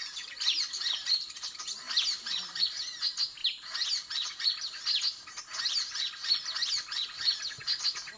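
Dense, unbroken chatter of many small birds' scolding calls and chirps, the 'suara ribut' commotion lure recording played to draw birds to the trap.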